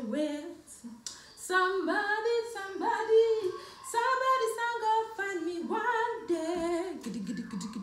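A woman singing a tune unaccompanied, in held notes that rise and fall; about seven seconds in her voice drops lower, as if into talk.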